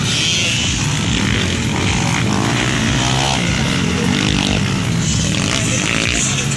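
Several motocross bikes running around a dirt grasstrack circuit: a steady mix of engines, with rises and falls in pitch as riders throttle up and pass.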